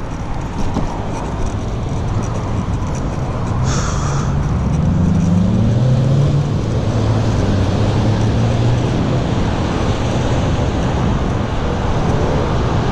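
Traffic on a busy multi-lane road passing close by, a steady hum of engines and tyres. A little after three seconds in, one vehicle's engine note rises and then holds for several seconds.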